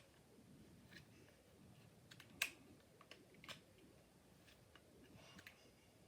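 Small plastic fidget toy being handled: a few faint, irregular sharp clicks, one louder click about two and a half seconds in.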